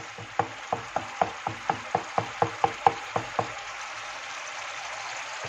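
A wooden spoon knocks against a frying pan about four times a second while stirring livers simmering in oil and white wine, over a steady sizzle. The knocking stops about three and a half seconds in, leaving the sizzle alone.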